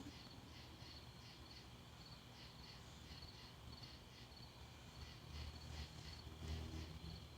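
Faint, steady insect chirping, about two to three chirps a second. A low rumble swells briefly about five seconds in.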